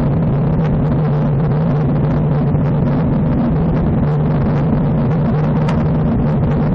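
Steady rush of wind over the microphone of a bike-mounted camera on a road bike moving at about 39 km/h, with a constant low rumble.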